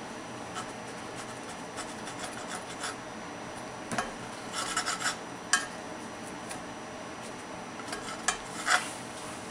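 Kitchen knife sawing through a baked Dutch baby pancake in a cast iron skillet, the blade rasping through the crisp crust and scraping on the pan. Faint scratchy strokes come first, then louder scrapes and a sharp click about four to five and a half seconds in, and two more sharp scrapes near the end.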